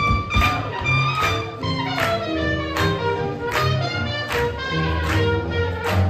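Swing jazz music playing, with horn-like held notes over a walking bass and a steady drum hit about every second.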